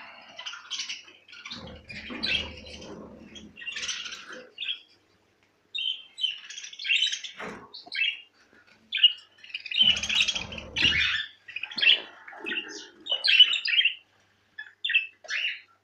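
A flock of caged budgerigars chattering, with many short chirps and squawks overlapping in quick succession. A low rumble comes in briefly twice, around two and ten seconds in.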